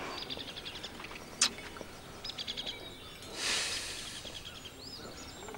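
Birds chirping and trilling in the background. There is a single sharp click about one and a half seconds in, and a breathy exhale of cigarette smoke around three and a half seconds.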